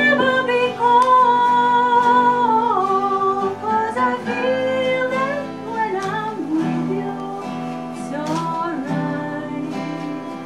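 A woman singing a slow song with acoustic guitar accompaniment, holding long notes that slide between pitches.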